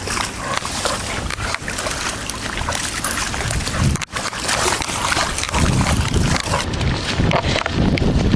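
Wind buffeting the microphone in gusts over a steady outdoor hiss, the low rumbling gusts growing heavier about halfway through.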